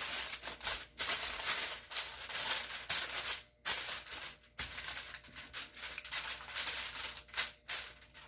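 Aluminium foil crinkling and rustling as it is pulled over and pressed around a baking dish, in bursts broken by a few short pauses.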